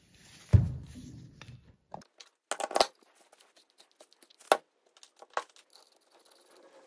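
Metal parts of an ATV drum brake being handled and fitted together by hand. A heavy thump comes about half a second in, then several sharp metallic knocks and clicks as the brake drum and hub go on over the shoes.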